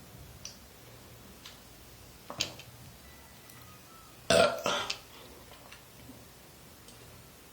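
A woman burping: one loud burp lasting about half a second, about four seconds in, with a shorter, fainter sound a couple of seconds before it.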